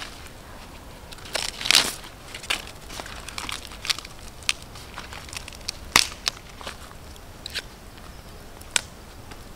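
An ear of corn being husked by hand, its husks tearing and rustling with crackly snaps, the loudest about six seconds in. Scattered sharp pops from a campfire's embers run under it.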